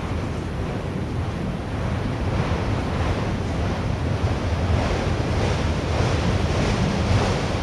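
Freight train cars rolling past close by: a steady rumble of steel wheels on the rails, with a hiss that swells a little after the first couple of seconds.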